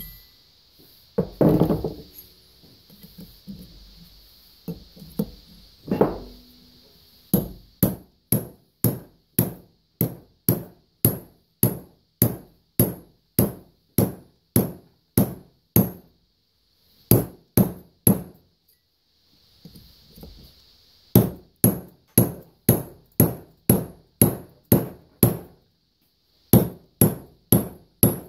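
Hammer blows on a steel driver rod, about two a second in runs with short pauses, driving a new valve guide into a John Deere 3 HP hit-miss engine cylinder head. A couple of single knocks come first, and the steady hammering starts several seconds in.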